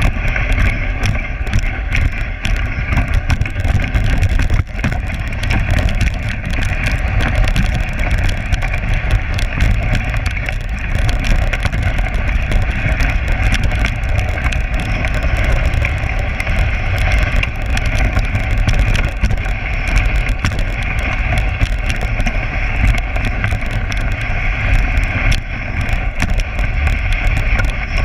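Dog sled runners on packed snow as a four-dog team pulls the sled along at speed: a steady, loud rumble and hiss, with many small rattles and clicks from the sled.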